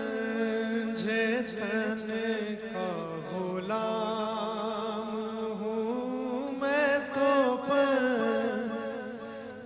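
A man singing a devotional Urdu kalam in praise of the Panjtan, drawing out long, ornamented held notes.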